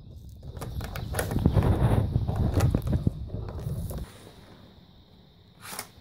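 Rustling and clunking of hands working a skateboard truck and a skate tool on carpet, with many light clicks of metal parts. It quiets about four seconds in, and one sharp click follows near the end.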